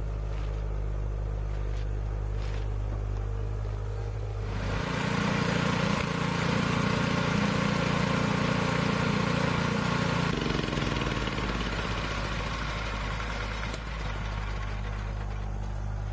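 A heavy machine's engine running steadily, then revving up about four seconds in and working hard for about six seconds before winding back down to a steady run.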